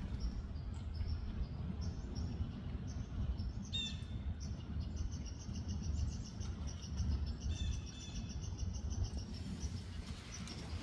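Small birds chirping and calling in short repeated notes, with a fuller call about four seconds in and again near eight seconds, over a steady low outdoor rumble.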